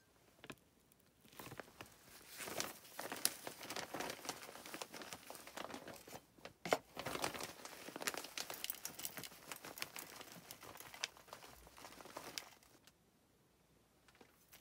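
Clear plastic bag of potting mix crinkling and rustling as it is handled, a dense rustle with many small clicks that lasts about ten seconds and stops a couple of seconds before the end.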